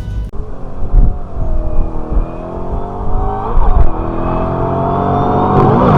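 Shelby GT500's supercharged V8 accelerating. Its note climbs steadily and drops sharply twice as it shifts up through the gears.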